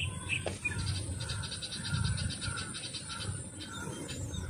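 Outdoor ambience: a low rumble of wind on the microphone, and from about a second in a rapid, high-pitched pulsing trill from a small animal, about eight pulses a second, lasting about two seconds.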